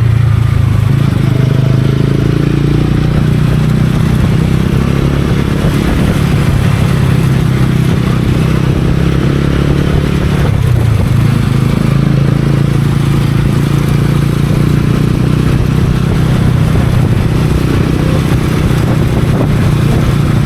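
TVS Ronin's single-cylinder engine running steadily under way, with a brief dip in the engine note about halfway through.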